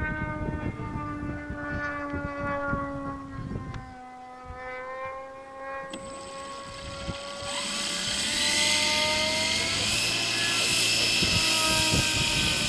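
Thunder Tiger September Fury RC model airplane's motor and propeller running on the ground, a steady tone that dips in pitch and rises again, then throttled up about seven or eight seconds in, getting louder with a strong high hiss.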